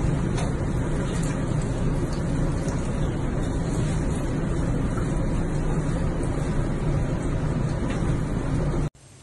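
Steady rushing of water in a bathtub, with a low rumble, cutting off suddenly near the end.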